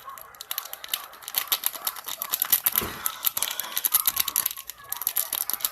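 Rapid crinkling and rustling of plastic packaging being handled, a dense run of small crackles that grows louder after about the first second.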